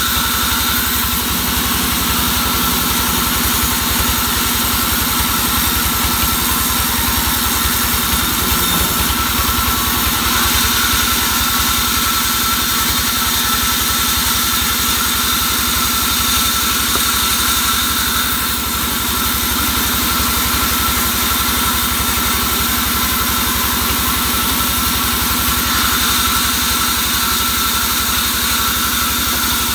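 Large vertical band saw running steadily while sawing a timber slab: a constant machine drone with steady high tones, changing little as the wood is fed through.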